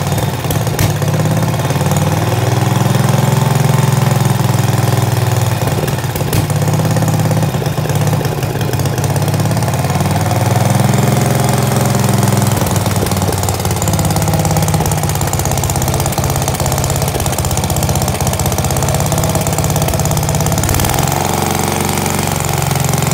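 Aebi AM 70 single-axle tractor's engine running at low speed, its pitch rising and falling a few times, on its first run after standing unused for a year.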